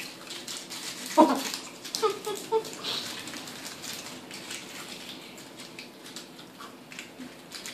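Gold foil wrappers of Ferrero Rocher chocolates crinkling as several people unwrap them by hand, with a short vocal sound about a second in and again about two seconds in.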